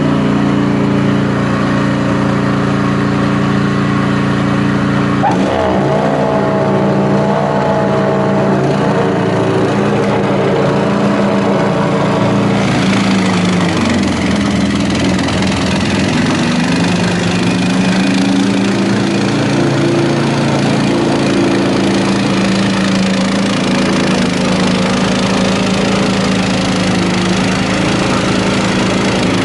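Honda HSS1332ATD two-stage snowblower's single-cylinder engine running steadily under load. About five seconds in, its note shifts and wavers for several seconds. About twelve seconds in, a broader rushing hiss joins the engine.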